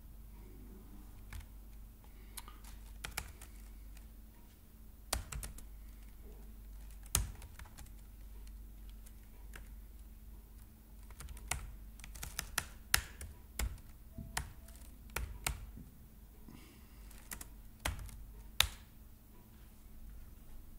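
Keystrokes on a computer keyboard, coming singly and in short irregular runs, over a faint steady low hum.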